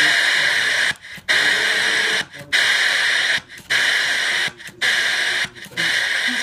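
Becker Mexico TR valve-era car radio's mono speaker hissing with FM static between stations, cut by brief dropouts about once a second while the Wonderbar auto-seek sweeps the band.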